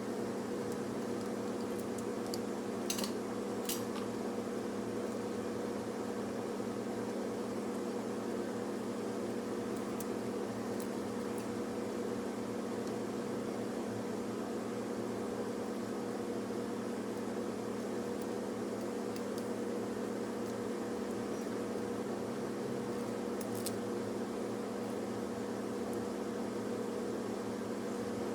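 Steady electric hum of a fan or blower motor on a repair bench. A few light clicks come about three and four seconds in and again near the end.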